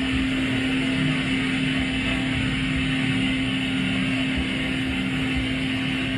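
Extra aerobatic airplane's engine and propeller heard from inside the cockpit, a steady drone with rushing air noise, played back over a hall's loudspeakers.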